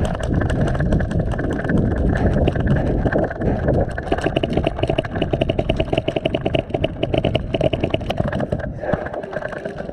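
Wind buffeting a body-worn camera's microphone as the wearer runs, with a rapid, even rattle of about ten clicks a second over it.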